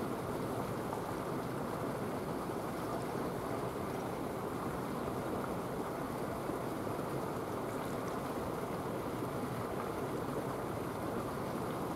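Steady seaside ambient noise: a constant wash of sea water, with no distinct sounds standing out.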